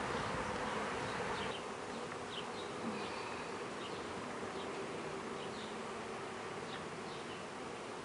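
Honey bees buzzing in numbers around an opened hive: a steady hum that drops a little in level about a second and a half in.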